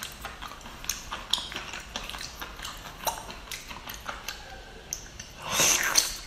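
Close-up eating sounds of a whole octopus in chili-oil sauce: small wet clicks and smacks as it is pulled apart and chewed, then a louder wet slurp near the end as a piece is bitten and sucked in.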